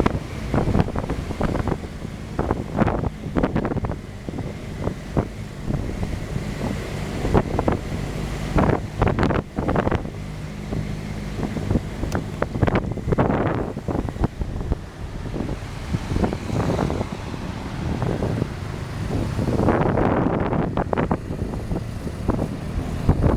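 Motor vehicle driving, with steady engine and road noise, wind buffeting the microphone and frequent thumps.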